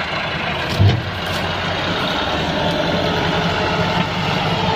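Massey Ferguson 385 tractor's diesel engine running steadily under load, working behind a heavily loaded sugarcane trolley. A loud low thump comes about a second in.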